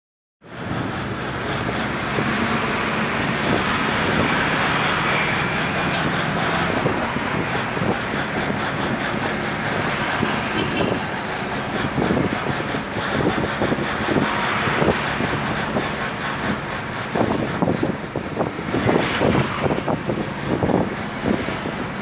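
Vehicle driving in traffic heard from inside the cabin: engine running with steady road noise. The sound turns rougher and uneven in the last few seconds.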